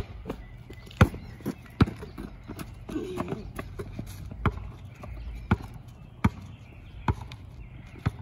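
Basketball being dribbled: sharp bounces on hard ground about once a second, with a short lull in the middle.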